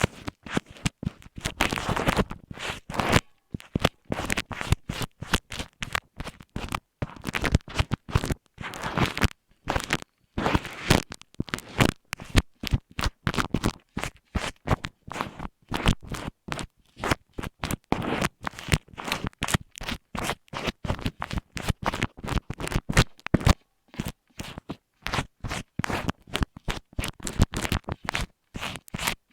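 Rapid, irregular scratching and scraping strokes rubbed right against an earphone microphone, close and dry, with brief pauses between runs.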